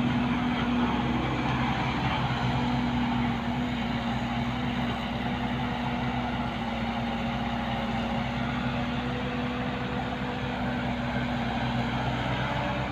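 Diesel dump truck engine idling steadily at an even pitch.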